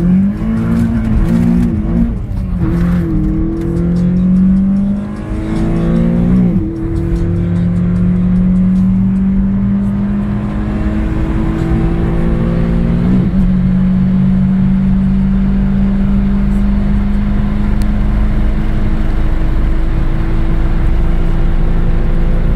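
Volkswagen Golf Mk2 GTI 16v's 1.8-litre 16-valve four-cylinder (PL engine) running under revs: it revs up at the start, then holds a steady note that climbs slowly in pitch, with brief dips about six and thirteen seconds in.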